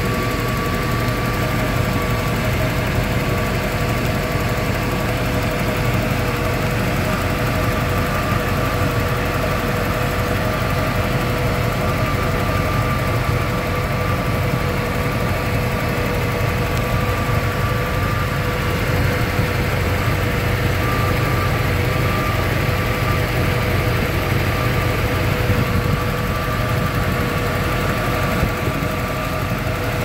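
Ford Bronco engine idling steadily with the hood open, a steady whine mixed in with the running. The owner suspects a vacuum leak.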